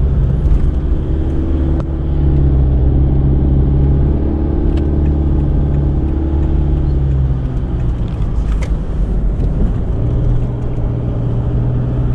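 Car on the move, its steady low engine and road drone heard from inside the cabin.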